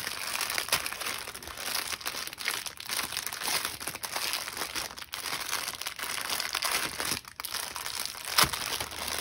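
Packaging crinkling and rustling continuously as it is handled and unwrapped by hand, with one sharp click near the end.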